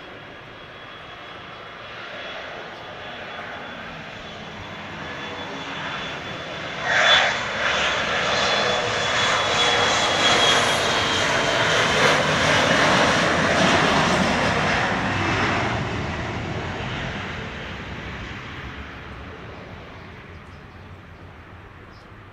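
Jet airliner's engines at takeoff power as it rolls past: a high whine, then a roar that builds about six seconds in, stays loud for several seconds and slowly fades away. A short loud burst comes as the roar arrives.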